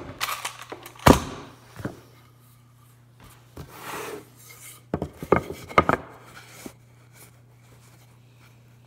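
Framing lumber being handled and fitted: a sharp wooden knock about a second in, a short scraping rub, then a quick run of knocks a little past the middle, over a steady low hum.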